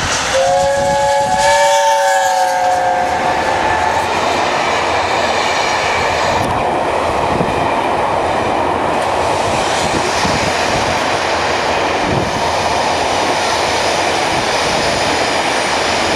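A passenger train sounds a long horn blast of several tones together, lasting about three and a half seconds as it approaches. Its coaches then pass close by with a steady rumble and clatter of wheels on the rails.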